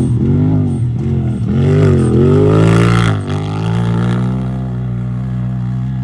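Off-road race vehicle's engine revving up and down in several quick pulses, with a short rush of noise near the middle. From about three seconds in it holds a steady note.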